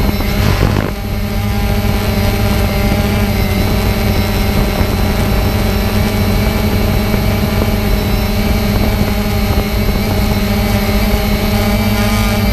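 Quadcopter drone's propellers and motors running in flight, a steady multi-toned buzz heard close up from a camera mounted on the drone. The sound dips briefly about a second in.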